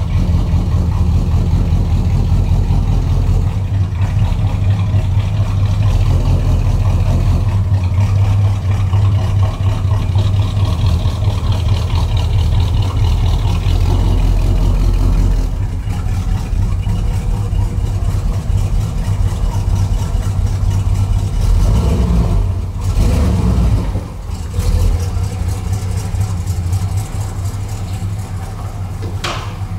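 A 1968 Dodge Charger's V8 running steadily, still warming from a cold start, heard in a concrete garage. The car backs slowly past the microphone, and the sound grows quieter near the end as it moves away.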